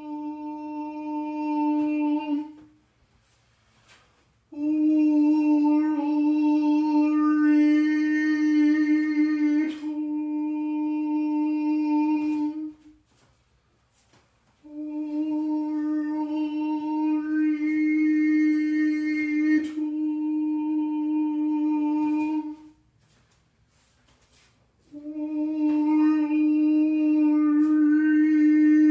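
A man's voice intoning long chanted names on one steady low pitch, each held about eight seconds with the vowel sound shifting along the way, and short pauses for breath between them. This is the drawn-out vibration of divine names used in Golden Dawn-style ritual.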